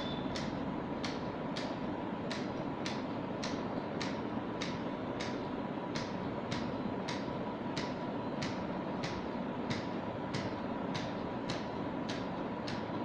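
Regular mechanical ticking, nearly two sharp ticks a second, over a steady fan-like hiss with a faint constant tone.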